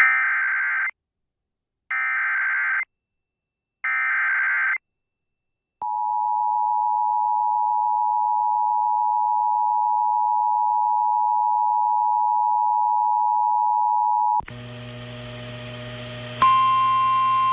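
Emergency Alert System header: three warbling SAME data bursts, about a second each and a second apart, then the two-tone EAS attention signal held steady for about eight and a half seconds. About three seconds before the end a buzzier mix of tones cuts in, joined by a single steady alert tone near the end.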